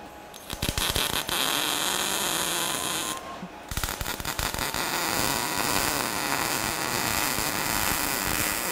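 MIG welding arc crackling steadily in two runs: the first starts about half a second in, stops briefly a little after three seconds, and the welding starts again about half a second later.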